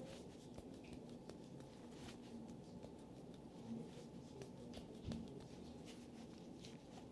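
Faint rustling and light clicks of hands and fabric during a massage, over a low steady room hum.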